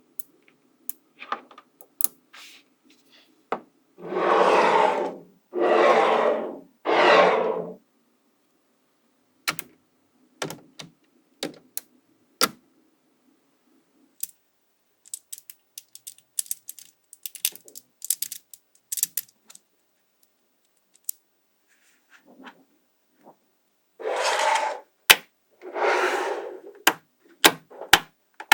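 Small magnetic balls snapping together in sharp, irregular clicks as a structure is built from them, with a few longer rustling swishes of about a second each, three in a row early on and two more near the end.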